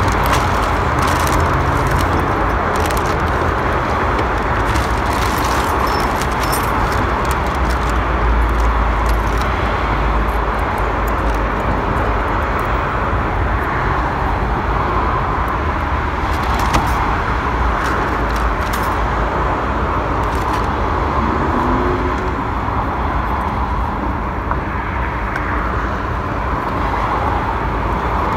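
Steady road-traffic rumble from a busy street, with a few light clicks in the first few seconds.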